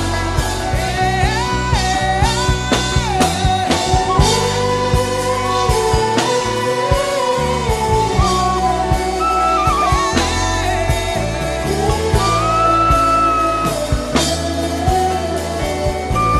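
Worship music: a wordless hummed melody line gliding between held notes, over a band accompaniment with a steady drum beat and bass.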